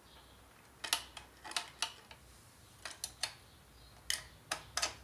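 A screwdriver fitting a small screw into a projector's plastic-and-metal housing: about ten sharp, irregular clicks, several in quick pairs, as the tip and screw catch and the parts knock together.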